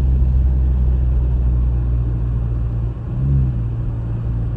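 Volkswagen Jetta Mk7 with an aftermarket intake driving, its engine and road noise making a steady low drone heard from inside the cabin. About three seconds in the level dips briefly and the pitch shifts before the steady drone resumes.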